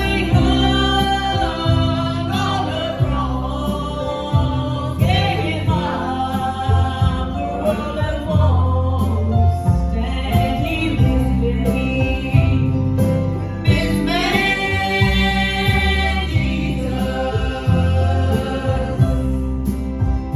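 Gospel song: voices singing a melody over instrumental accompaniment with a strong bass line.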